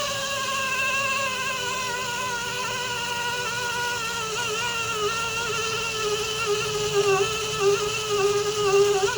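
Pneumatic low-speed tire buffer running with a steady high whine. Its pitch sags and wavers, and it grows louder in uneven surges near the end before cutting off abruptly as the throttle is released.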